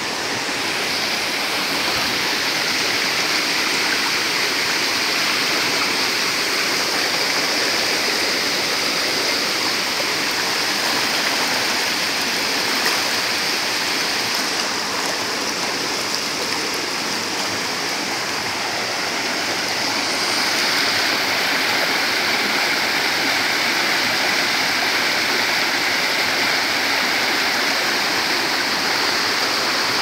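Water of a small waterfall cascading over and between boulders in a rocky stream: a steady, even rush, its tone shifting slightly about two-thirds of the way in.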